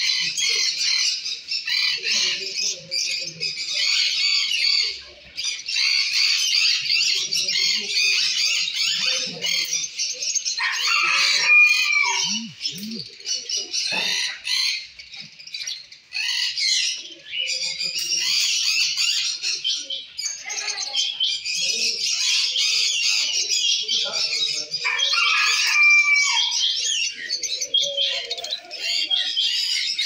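Many caged birds chirping and chattering together in a dense, unbroken chorus, with a few louder sliding calls standing out near the middle and again near the end.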